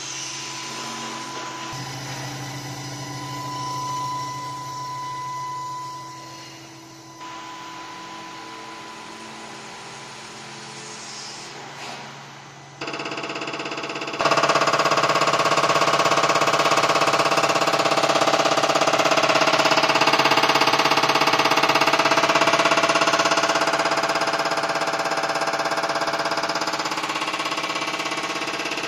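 Nantai NTS709 common-rail injector test bench running a diesel injector test, a steady mechanical running sound with steady tones. About thirteen to fourteen seconds in it steps up sharply to a much louder steady run as the bench moves from the leak test into the warm-up stage.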